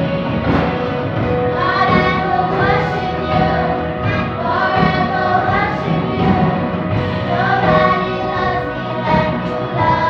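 Children's choir singing into handheld microphones, with long held and gliding notes.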